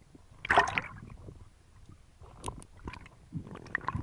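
Water sloshing and gurgling around a snorkeller's underwater camera, with a short loud burst about half a second in and scattered faint crackles and ticks after it.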